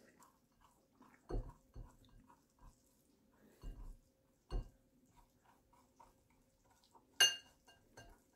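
A metal fork scraping cooked spaghetti squash strands out of the shell into a glass bowl: faint scrapes and a few dull knocks, then one sharp ringing clink of fork on glass about seven seconds in, over a faint steady hum.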